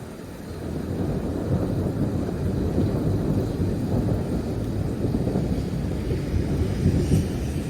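Rolling thunder from a nearby storm: a deep rumble that builds over the first second and keeps rolling strongly, with uneven surges.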